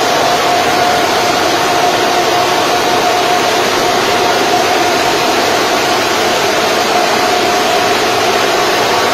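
Many Antminer ASIC cryptocurrency miners' cooling fans running together: a loud, steady rush of air with a constant mid-pitched whine.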